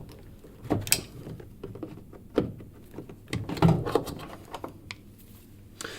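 Scattered clicks and knocks of hoses and their Jubilee clips being worked loose and pulled off a washing machine's plastic detergent drawer housing.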